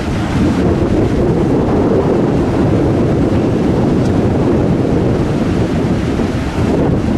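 Steady rush of churning propeller wash behind the stern of the ferry Mega Express Two as it leaves its berth, mixed with a low rumble and wind buffeting the microphone.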